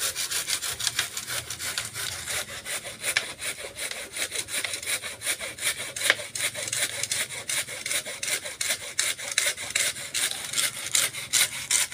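Hand saw cutting through a green kapok (randu) trunk in quick, even back-and-forth strokes.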